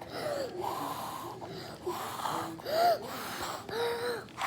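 A child blowing hard into slime to blow a bubble, about five separate breathy puffs, each with a short squeaky, wobbling tone. The loudest puff comes near three seconds in.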